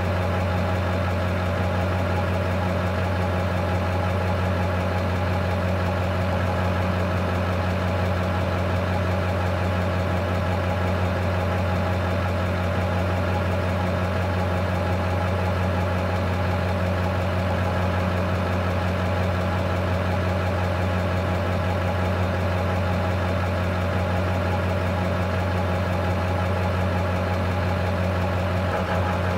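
Diesel engine of a Class A tractor-trailer idling steadily, with an even, unchanging rumble.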